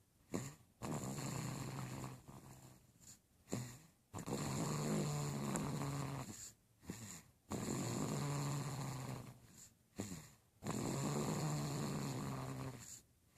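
Snoring: four long, low snores about three seconds apart, with short quiet breaths in between.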